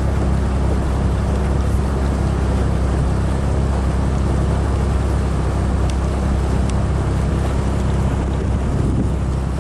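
Pontoon boat's outboard motor running at a steady cruising speed, with a low, even drone.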